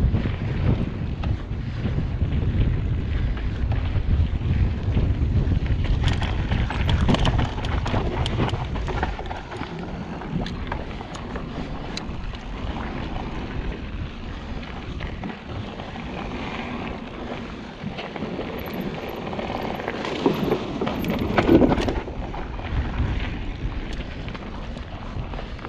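Wind buffeting the microphone of a mountain bike rider's camera, heaviest in the first nine seconds or so. Under it are the noise of tyres rolling over a dirt trail and scattered sharp clicks and rattles from a Specialized Enduro full-suspension mountain bike.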